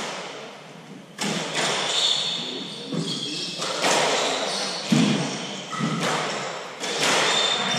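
Hardball squash rally: the hard ball cracking off racquets and the court walls every second or two, each hit echoing in the enclosed court.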